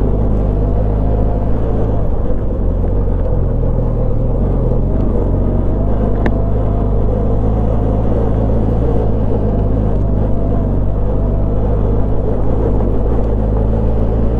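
Benelli TRK 502's parallel-twin engine running steadily in first gear, with one sharp click about six seconds in.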